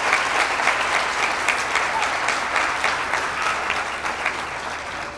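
Audience and graduates applauding, many hands clapping together, the applause slowly dying away toward the end.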